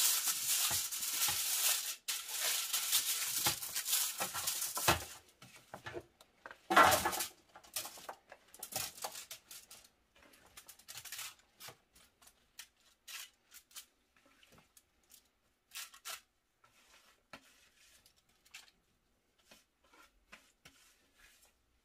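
Aluminium foil lining a baking tray crinkling under a gloved hand as oil is spread over it, a dense rustle for about five seconds. Then chopped vegetables tipped out of a bowl onto the foil in one loud rush, followed by scattered small rustles and clicks as they are spread out.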